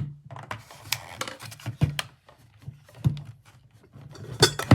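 Quick irregular plastic clicks, taps and scrapes of a plug-in wall-outlet space heater being handled and pushed into a wall socket, with the loudest knocks near the end.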